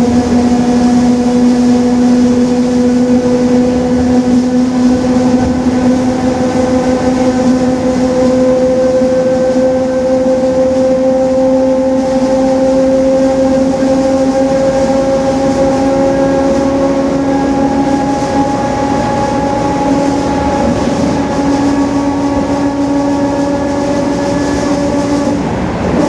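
City bus's rear differential whining at highway speed: a loud, steady gear whine that slowly rises in pitch as the bus gathers speed, with a brief dip near the end.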